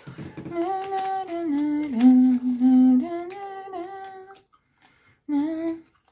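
A woman humming a slow melody in long held notes, stepping down in pitch and back up. It breaks off about four and a half seconds in, and a short hummed phrase follows near the end.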